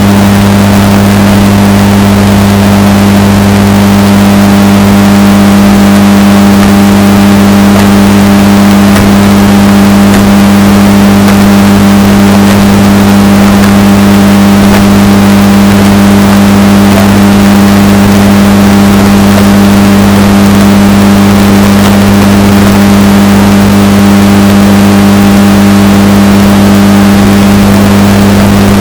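Washing machine running with a steady, unchanging motor hum, bass-boosted and heavily distorted at near full volume.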